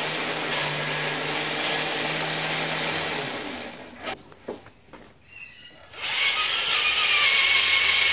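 Electric motor and gear drivetrain of a 1/10 scale radio-controlled 4x4 truck running with a steady whir. It breaks off for a couple of seconds with a few clicks, then whines again, rising slightly in pitch, as the open differentials send all the drive to the diagonal wheels spinning free in the air.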